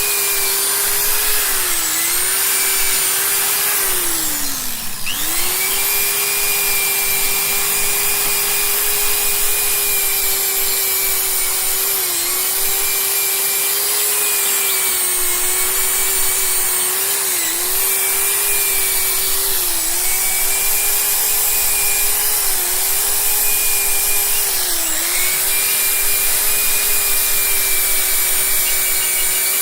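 Electric power tool's motor running at a steady high whine. Its pitch dips briefly several times as the tool is pressed into the work, and it slows right down about four to five seconds in before spinning back up to speed.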